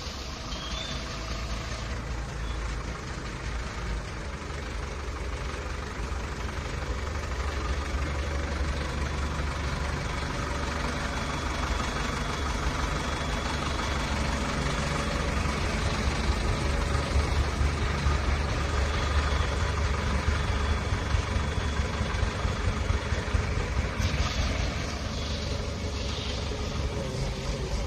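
JCB 4CX backhoe loader's diesel engine running steadily with a low rumble. It grows somewhat louder through the middle and eases back near the end.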